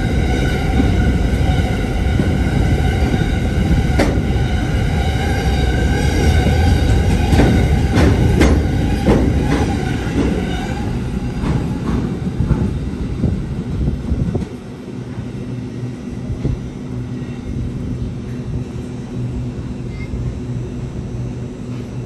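Electric suburban train running through the station, a steady whine of several tones over a loud low rumble, with sharp wheel clicks over rail joints. About two-thirds of the way through it drops to a quieter, lower steady hum.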